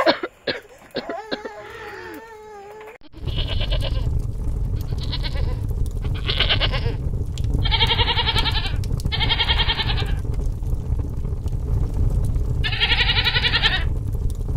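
An infant crying for about three seconds. Then, after an abrupt change, livestock bleat over and over, about six calls of half a second to a second each, over a steady low rumble.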